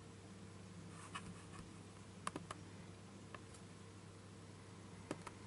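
About six faint, short computer mouse clicks, single and in a quick pair, spread over a few seconds over a low steady electrical hum.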